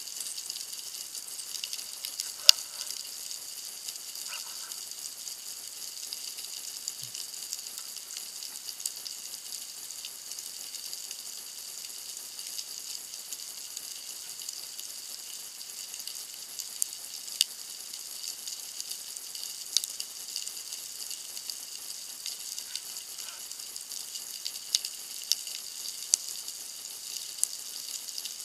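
Underwater ambience: a steady, high, fine crackling hiss with scattered sharp clicks, the loudest about two and a half seconds in.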